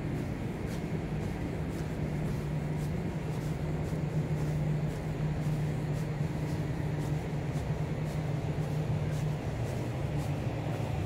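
A steady low hum over a general outdoor urban background rumble, with faint regular footsteps about twice a second.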